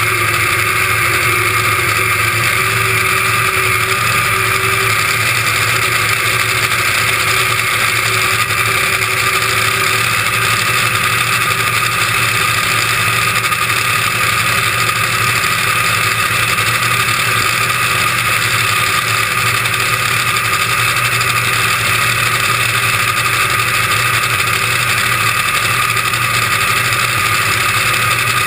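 Top Fuel dragster's supercharged nitromethane V8 idling steadily with no revving.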